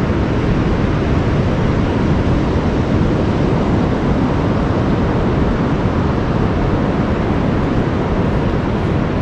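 Steady wind buffeting the microphone, a low rumbling rush, with the wash of breaking surf under it.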